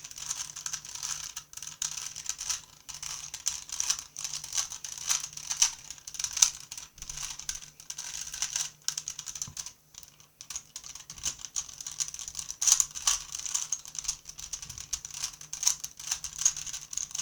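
Rubik's-brand 3x3 Rubik's Cube being turned rapidly by hand during a speedsolve: a fast, continuous run of plastic clicks and clacks from the layers snapping round, with a brief pause a little before the middle.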